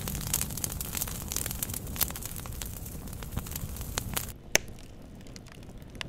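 Firewood burning in an open fire pit, crackling with many small pops and snaps. The crackle thins after about four seconds, and one loud crack comes about four and a half seconds in.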